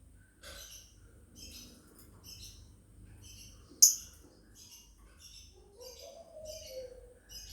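Lovebirds chirping: a steady run of short, high chirps about two a second, with one much louder, sharp chirp about four seconds in and a lower, drawn-out note near the end.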